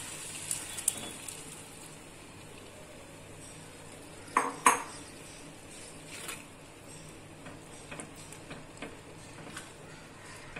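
Cookware clatter as cooked whole masoor dal goes into a kadhai of fried masala and is stirred in with a silicone spatula: scattered light clinks and scraping, with two sharp clanks close together about four and a half seconds in.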